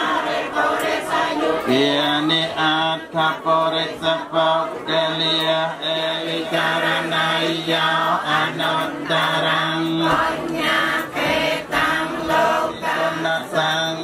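A group of voices chanting Buddhist prayers in unison, held on a near-monotone pitch in long phrases with short breaks between them.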